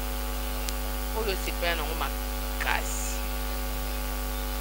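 Steady electrical mains hum, a low buzz with a series of constant tones, on an interview recording, with a few faint snatches of a voice beneath it.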